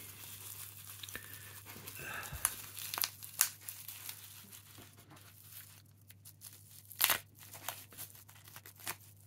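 Bubble wrap being picked at and pulled apart by hand, crinkling softly, with scattered crackles and a few sharper clicks about three and seven seconds in.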